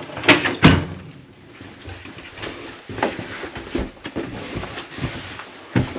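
A door on an old railway passenger car knocks twice in the first second, then footsteps thud along the car's corridor floor.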